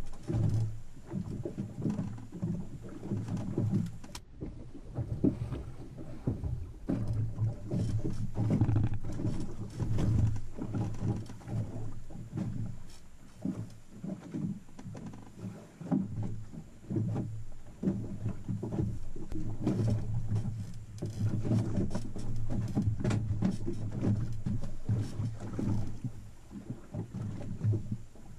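Open-air sound on a small boat at sea: wind buffeting the camera microphone and water against the hull, with a low hum that swells and fades in gusts, and scattered light knocks and handling noises.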